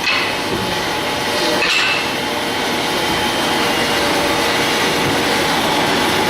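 CNC axle-turning lathe running and cutting a square tractor-trolley axle: a steady machining noise with several steady whining tones.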